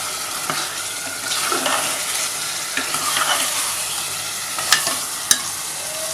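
Mutton gravy masala of onion paste, ginger-garlic paste and turmeric sizzling as it fries in a pot while a spoon stirs and scrapes through it. Two sharp knocks come near the end.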